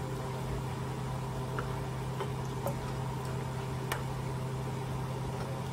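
Spatula stirring thick mashed beans and chorizo in a pan, with a few light clicks of the spatula against the pan, over a steady low hum.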